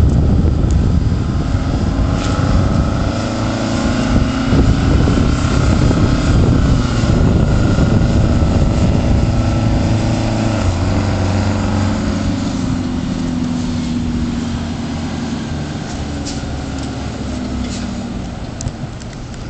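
The 1978 American LaFrance tiller ladder truck's 8V71 Detroit Diesel, a two-stroke V8 with a vertical exhaust, running as the truck drives past, its note rising and falling with engine speed. It grows a little quieter over the last several seconds.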